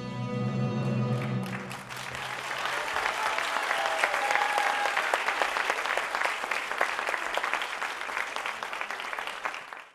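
Recorded orchestral music ends on a held chord about a second and a half in, then an audience applauds steadily until the sound cuts off abruptly at the very end.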